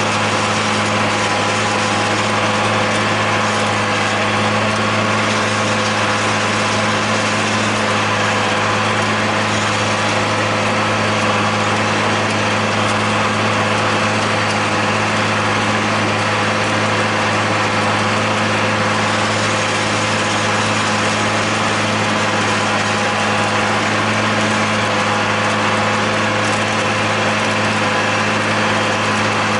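John Deere 8100 tractor's six-cylinder diesel engine running at a steady pitch while mowing hay with a John Deere 946 discbine, a constant drone with no change in speed.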